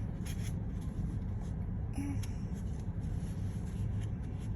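Light rubbing and a few faint clicks from the pieces of a toy airplane being handled and pushed into the slots of its body, over a steady low hum.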